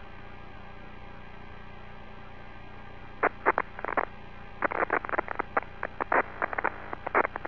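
Steady electrical hum on the shuttle's cockpit radio/intercom audio loop. From about three seconds in, a run of short, irregular crackles and clicks comes over it.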